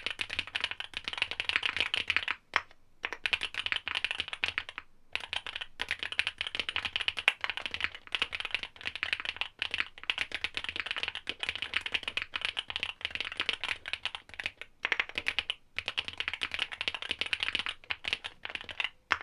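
Fast typing on a Swagkeys Shelby80 mechanical keyboard with OWLAB SWK Neon switches, a POM plate and GMK keycaps: a dense stream of keystroke clacks, broken by three short pauses, that stops at the end.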